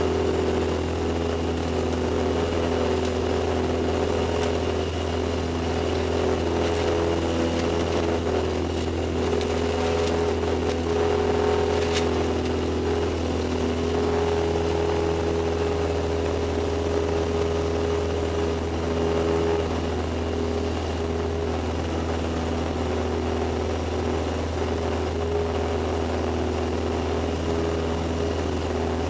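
Cessna 172's piston engine and propeller droning steadily in cruise, heard through the cockpit intercom. The drone has a constant low hum and a thin high whine.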